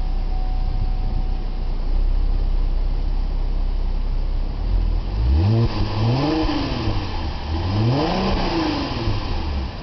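2005 Cadillac CTS dual exhaust idling with a steady low rumble, then revved twice from about halfway in, the pitch rising and falling with each blip of the throttle.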